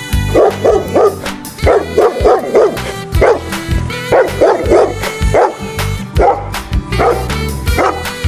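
A dog barking repeatedly, short barks coming in quick runs of two or three, over background music.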